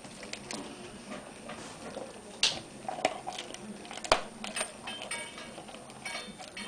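A Weimaraner chewing and crunching a roasted hock joint and trotter: irregular wet gnawing with sharp cracks and clicks as its teeth work the bone and crackling, the loudest about two and a half and four seconds in.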